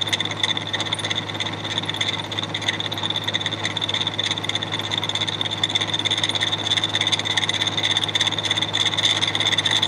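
Jet JMD-18 mill-drill running a 3/8-inch carbide end mill at 1600 RPM, cutting a full-depth keyway in annealed 4140 steel at a slow 1 inch per minute feed. Steady cutting sound with a constant high whine over the hum of the machine's motor and spindle.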